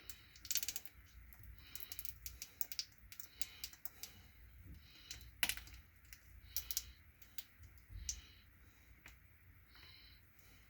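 Parts of a DeWalt DCD995 hammer drill's gearbox being handled and fitted back together: light, irregular clicks and taps of small gear parts, the sharpest about five seconds in, fewer near the end.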